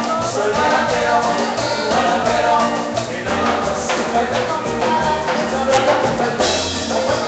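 A live Latin dance band playing loudly through a PA, with accordion, keyboard and percussion, picked up by a phone's microphone out in the hall.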